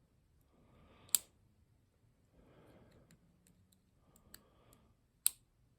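Lock pick and tension tool working the pins of a six-pin ZI Ikon padlock, with sharp metallic clicks about a second in and near the end and a smaller tick between. These are pins setting one by one at the shear line during picking.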